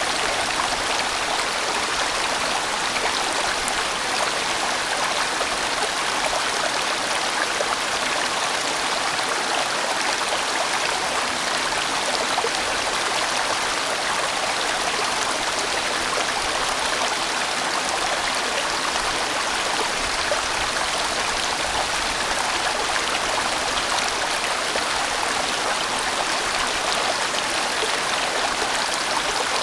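A large, winding mountain valley stream flowing in a steady, unbroken rush of water.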